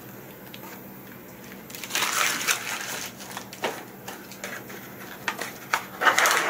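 Plastic packaging crinkling and rustling as a feeding tube is unwrapped, loudest about two seconds in and again near the end, with scattered clicks.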